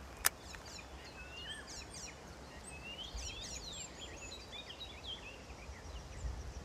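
Small birds chirping and twittering throughout, with many quick notes sweeping up and down, over a low rumble. A single sharp click sounds about a third of a second in.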